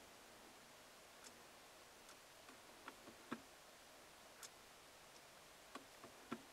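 Near silence broken by about ten faint, irregular clicks, two of them louder, about three seconds apart: the S-Class infotainment controller being turned and pressed to choose and start a seat massage program.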